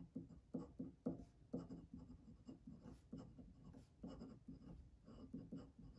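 Faint scratching of a pen on paper in quick short strokes as words are handwritten.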